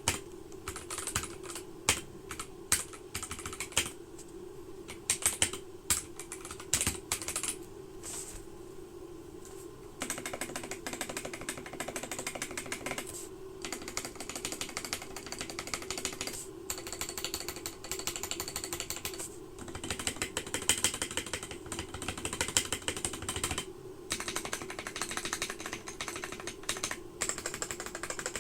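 Typing on an Akko 3068B mechanical keyboard with ASA-profile keycaps and smooth, unlubricated switches: a steady stream of key clacks that grows faster and denser about a third of the way in. A constant low hum runs underneath.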